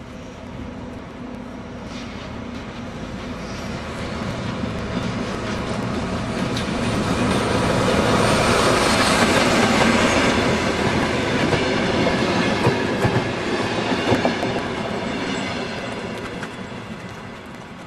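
Regional passenger train leaving the station and passing close by. Its running noise swells as the locomotive nears and fades as the carriages roll past, with a few sharp clicks from the wheels over the track near the end.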